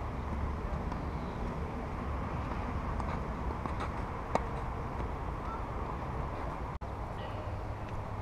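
Tennis ball hit back and forth in a rally, heard as a few faint racket pocks, the loudest about four seconds in, over steady outdoor background noise.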